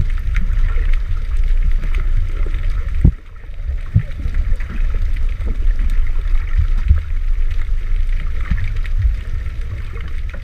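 Muffled underwater water rumble and sloshing against a waterproof camera housing as a snorkeler moves, with a few dull knocks, the sharpest about three seconds in.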